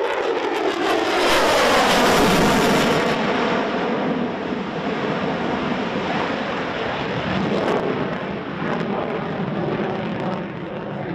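F-22 Raptor's twin Pratt & Whitney F119 afterburning turbofans roaring in a flyby, loudest about two seconds in with the pitch falling as the jet passes, then a steady roar that eases off slowly.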